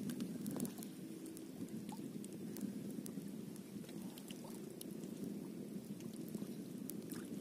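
Small waves lapping and splashing at the water's edge in a steady low wash, with scattered faint ticks and clicks.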